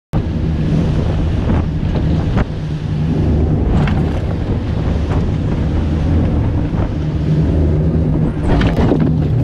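Boat engine running steadily under way, a constant low hum, with wind rushing over the microphone.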